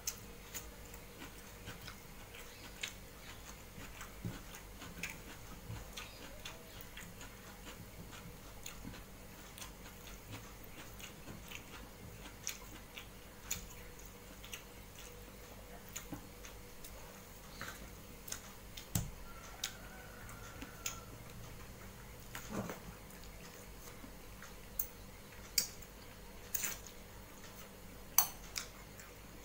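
Eating by hand: chewing and small mouth clicks, with fingers mixing rice and fish curry on a metal plate. Scattered small clicks and taps at irregular intervals, a few sharper ones near the end.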